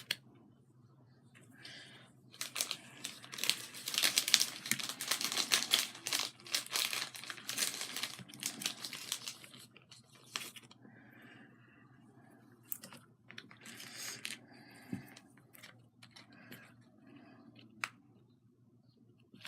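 Crinkling and rustling of materials being handled, dense from about two and a half to nine seconds in, then scattered light clicks and taps.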